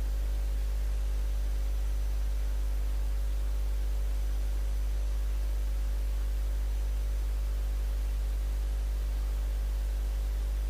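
Steady low electrical mains hum with an even hiss: the background noise of the recording or sound system, unchanged throughout.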